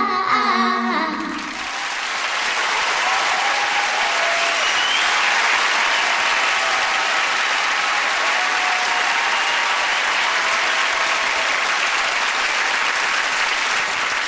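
The last notes of a pop song with singing die away in the first second or two, then an audience applauds steadily.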